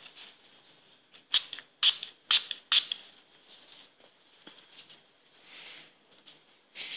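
A small pump-spray bottle of Verb Sea Spray spritzed onto hair four times in quick succession, each spritz a short hiss, about half a second apart.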